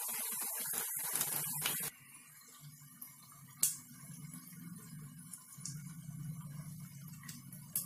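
Sabudana pakoras sizzling as they deep-fry in hot oil. The sizzle is loud for about the first two seconds, then drops suddenly to a faint crackle with a few sharp pops over a low steady hum.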